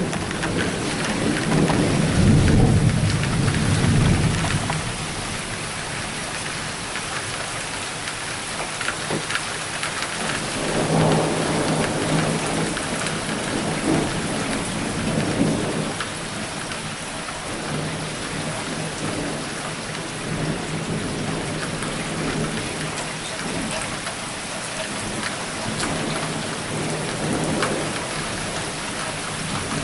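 Steady rain falling through a severe thunderstorm, with thunder rumbling loudest in the first few seconds and softer rolls of thunder a few more times later on.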